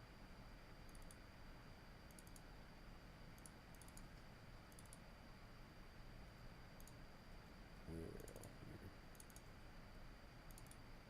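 Near silence with faint computer mouse clicks in small clusters of two to four, about every second, over a faint steady high whine.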